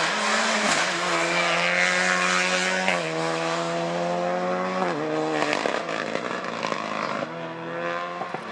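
Rally car engine running hard, its note jumping in pitch several times through gear changes, with a few sharp cracks.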